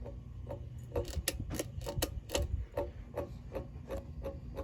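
Emerson Designer ceiling fan running, its switch housing giving a light banging tick about two to three times a second over a low motor hum, louder and quicker for a second or so about a second in. The knocking comes from a cracked nylon bushing in the switch housing.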